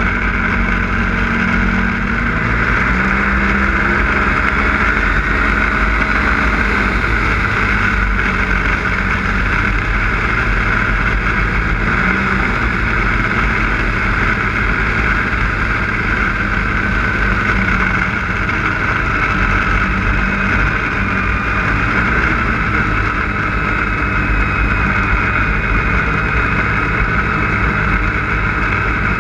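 Snowmobile engine running steadily at trail speed, its pitch wavering slightly in the first several seconds.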